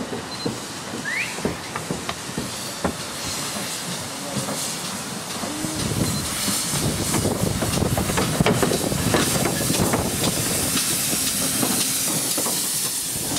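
GWR 2251 class 0-6-0 steam locomotive No. 3205 hauling a train of coaches, approaching and passing, with steam hissing and a run of clicks and knocks from the train. The sound builds from about six seconds in as it draws level.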